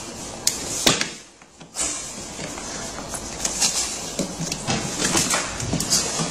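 Hard plastic parts scraping, rustling and clicking as a black plastic bumper bracket is pushed and worked into place in the red plastic body of a kids' ride-on toy truck, with a few sharp knocks near the start.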